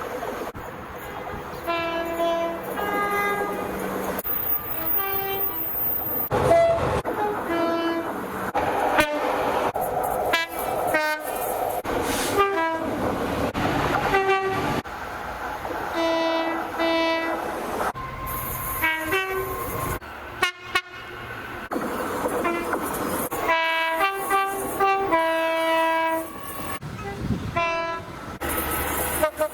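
A rapid run of British train horns, one short clip after another: two-tone horns on passing diesel and electric trains sounding short and longer blasts, high and low notes in turn, with the noise of the running trains under them.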